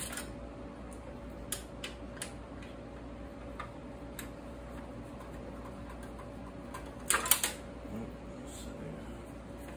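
Screws being worked loose with a hand screwdriver inside a steel computer case: scattered light metallic clicks, then a quick cluster of louder metal clinks about seven seconds in, over a faint steady hum.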